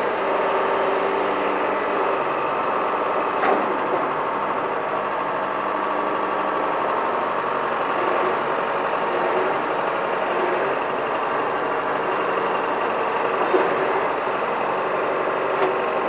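John Deere 410 backhoe's diesel engine running steadily just over idle while the hoe digs. Two short, sharp knocks stand out, one about three and a half seconds in and one near the end.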